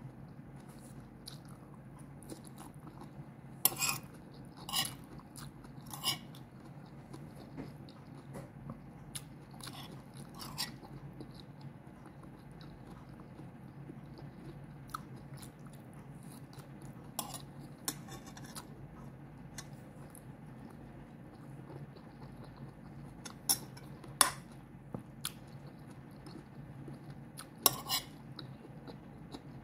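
Close-up eating sounds: chewing a mouthful of rice and bitter melon, with a metal spoon scraping and clinking against the plate several times, the sharpest clinks about four, five, six and twenty-four seconds in and near the end. A steady low hum runs underneath.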